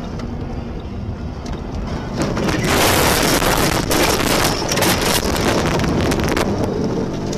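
Car rolling on a snowy road, then about two seconds in a loud rushing, crackling noise of snow spraying over the car and windshield that lasts about four seconds before easing back to road noise.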